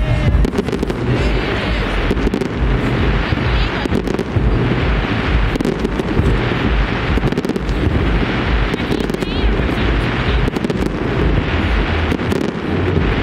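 Aerial fireworks display: shells bursting one after another in a rapid string of bangs and crackles.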